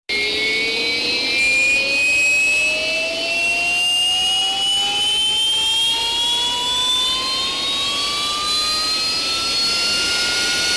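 AV-8B Harrier's Rolls-Royce Pegasus turbofan spooling up on start: a whine that climbs slowly and steadily in pitch, with a higher whine climbing alongside it over a steady rush of air.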